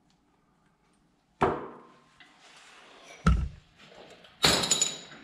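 Three sudden knocks from metal tools or parts being handled and set down, about a second and a half to two seconds apart: a sharp clunk, a deep thud, then a metallic clatter that rings on briefly.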